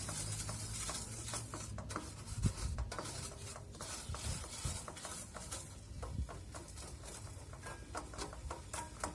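A utensil stirring and scraping in a small pot of ginger juice and melting palm sugar, with irregular light clicks and scrapes over a faint low hum.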